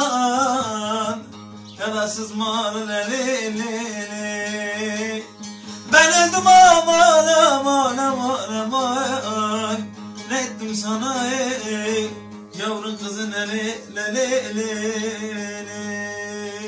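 A man's voice singing a Turkish folk song (türkü) in long, wavering, ornamented phrases over two bağlamas (saz) being plucked and strummed. The loudest sung phrase begins about six seconds in.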